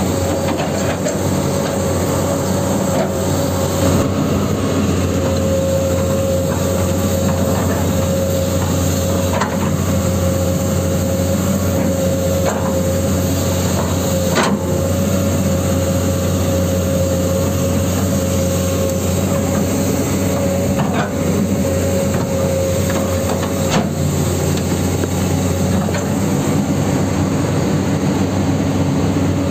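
Huina 1594 RC excavator working in sand: a steady mechanical drone with a constant whine, broken now and then by sharp clicks and knocks.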